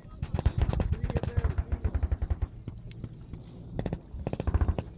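Rapid bursts of automatic gunfire: a fast string of shots for about two and a half seconds, a short lull, then another burst near the end.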